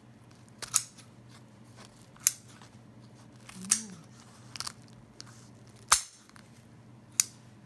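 Kitchen scissors snipping through the breast of a whole roasted chicken, six sharp snips at irregular intervals.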